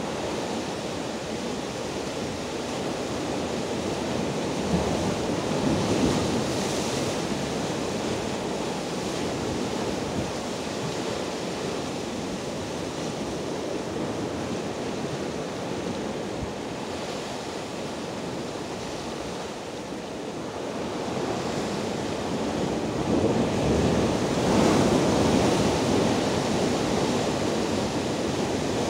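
Rough sea waves breaking and foaming over shoreline rocks: a continuous rushing wash of surf that surges louder around six seconds in and again from about twenty-three to twenty-seven seconds in.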